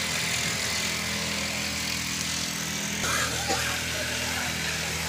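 Steady background hiss with a low hum, and a brief faint voice about three seconds in.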